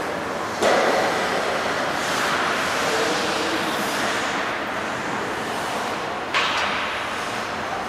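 Ice hockey rink ambience: a steady wash of skating and arena noise, broken by two sharp knocks from play, one under a second in and one about six and a half seconds in, each ringing briefly in the hall.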